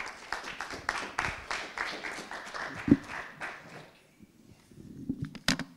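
Audience applauding for about four seconds, then fading out. A single sharp knock comes near the end.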